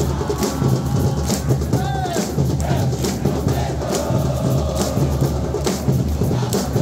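Football supporters' group chanting in unison in the stands, backed by a bateria of bass drums pounding a steady beat.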